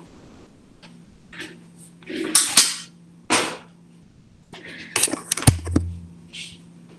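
Handling noises from plugging a laptop charger in: several rustles and scrapes, then a few sharp clicks about five seconds in, the loudest followed by a short low hum.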